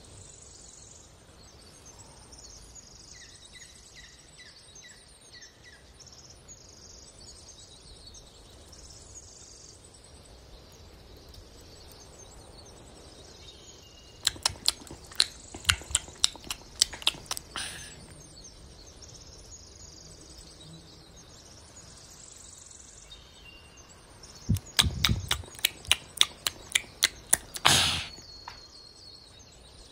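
A cat biting and chewing green flower leaves: two runs of quick, crisp crunches, each about three seconds long and several seconds apart, the second with a soft thump.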